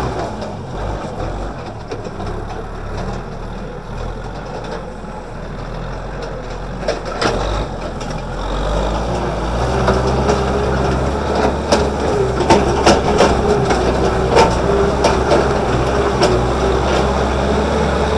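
Kubota M6040SU tractor's four-cylinder diesel engine running steadily under load as it pulls a disc plow through dry ground. Scattered clanks and knocks come through, most often in the second half, which gets louder from about nine seconds in.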